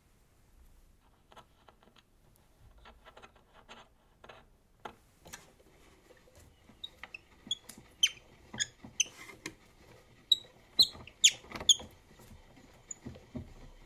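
Portable wind-up gramophone being handled: faint clicks as a steel needle is fitted into the soundbox, then, from about the middle, a run of short, sharp, high metallic squeaks and clicks from its moving parts.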